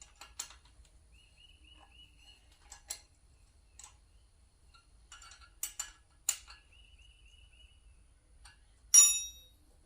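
Scattered light metal clicks and knocks as tools and a casting are handled at a lathe, with two short runs of faint high ticking. About nine seconds in comes the loudest sound, a sharp metal clink that rings briefly.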